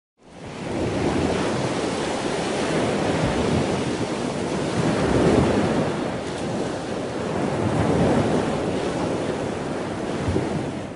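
Ocean surf: waves washing in a steady rush that swells and eases slowly, fading out near the end.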